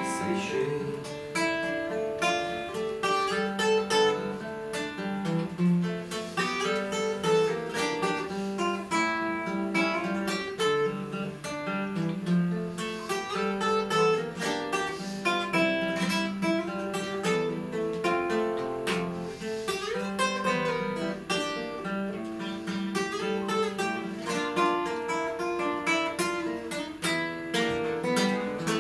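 Solo classical (nylon-string) acoustic guitar playing an instrumental passage: a continuous stream of plucked notes and chords.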